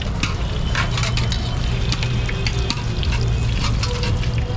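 Battered potato chops (alur chop) deep-frying in a large wok of hot oil: a dense, steady sizzle with many small crackles and pops. A steady low rumble runs underneath.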